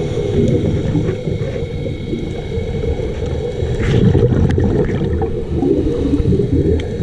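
Muffled underwater rumble picked up through a diving camera's housing, with a few faint clicks scattered through it.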